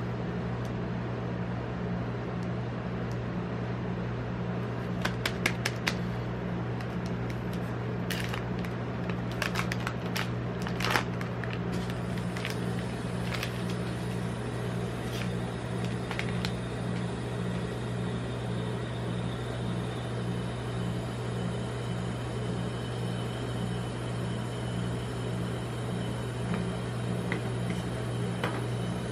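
Steady low hum of a rolled-ice-cream machine's refrigerated cold plate running. Between about five and eleven seconds in, a chocolate bar's foil and paper wrapper crinkles sharply as it is unwrapped.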